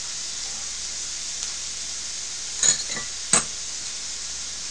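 Beef sirloin sizzling steadily on a hot tabletop griddle, with two short clicks, such as chopsticks against dishes, about two and a half and three and a half seconds in.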